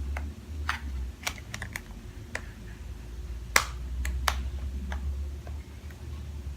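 Irregular small plastic clicks and taps from handling a toy doll closet, probably its door being worked, with a steady low hum underneath. The loudest click comes about three and a half seconds in.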